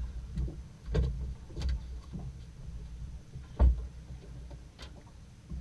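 A boat's engine humming steadily, with irregular knocks and thumps over it, the loudest about two thirds of the way in.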